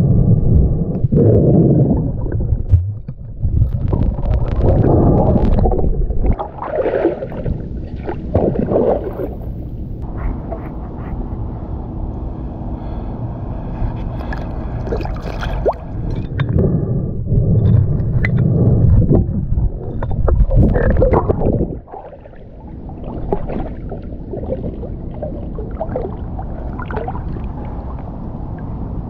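River water sloshing and gurgling around a camera dipped in and out of the water. There are stretches of loud, muffled rumbling while it is under the surface, the loudest near the start and again about two-thirds of the way through. In between are lighter splashes as a gloved hand lifts bottles from the riverbed.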